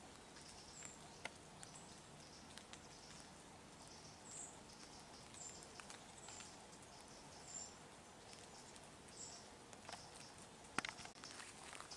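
Faint high-pitched bird calls, short chirps repeated every second or so over quiet rural ambience, with two soft clicks near the end.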